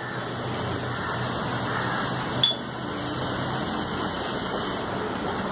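Electric hand blender running steadily, puréeing cooked lentils and vegetables in a pressure cooker pan, with a short knock about two and a half seconds in.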